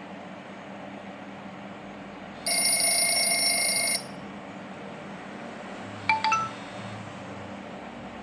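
Nokia 603 phone speaker playing ringtone previews. A chord of steady tones about a second and a half long cuts off abruptly, and a brief few-note blip follows about six seconds in, over a faint steady hiss.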